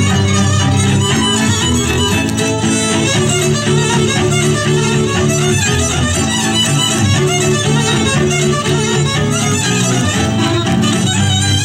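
Hungarian folk dance music for a legényes, led by a fiddle playing a fast tune over a steady low accompaniment.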